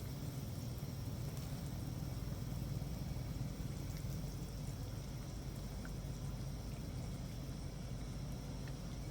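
Hot-pot broth bubbling steadily in the pot over the heat, with a steady low hum underneath.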